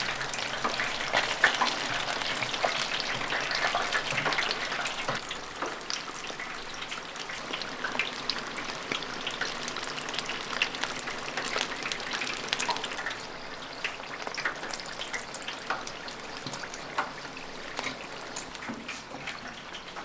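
Battered frogs deep-frying in hot oil: a steady sizzle full of small crackles and pops, a little louder in the first few seconds.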